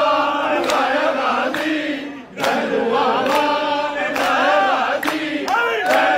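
A crowd of men chanting and singing together in unison, over a sharp beat about twice a second, with a brief break a little over two seconds in.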